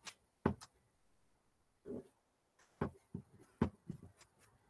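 Faint handling noises: several short taps and knocks, spaced about a second apart, as a painted cosplay prop is turned over and handled while its latex masking is peeled off.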